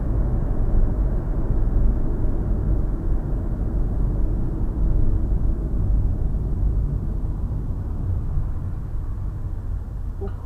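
Car driving on a city road heard from inside the cabin through a dashcam: a steady low rumble of tyres and engine that eases a little as the car slows.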